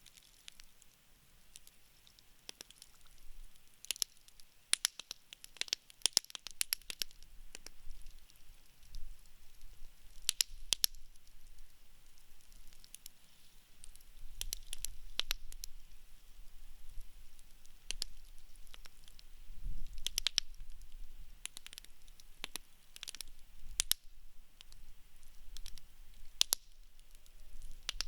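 Wood campfire burning, with irregular sharp pops and crackles coming in clusters over a faint low rumble.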